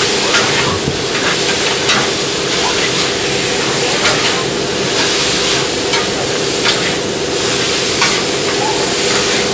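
Gopchang and vegetables stir-frying on a hot flat iron griddle: a steady sizzle, with the sharp clack and scrape of metal spatulas striking the griddle now and then.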